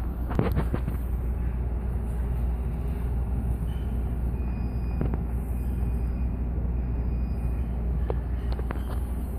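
Steady low rumble of room noise, with a few sharp clicks that fit the phone being handled.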